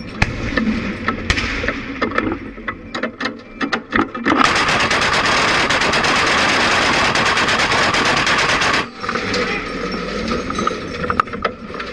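Twin-barrelled anti-aircraft gun: scattered sharp clacks and knocks, then about four seconds in a long continuous burst of automatic fire lasting about four and a half seconds that cuts off abruptly. Lighter clatter follows.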